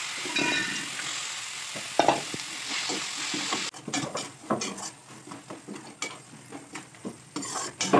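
Onion masala sizzling in a steel kadhai while a spatula stirs and scrapes against the pan. The frying hiss drops off suddenly a little over halfway, leaving mostly the quick scraping strokes of the spatula.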